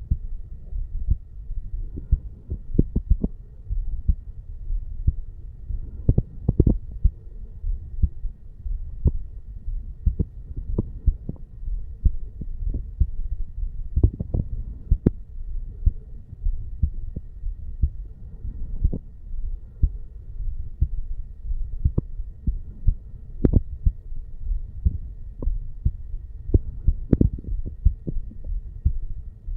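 A man's heartbeat recorded against the chest over the bicuspid (mitral) valve area: low thumps repeating steadily over a low hum, with a few sharper clicks.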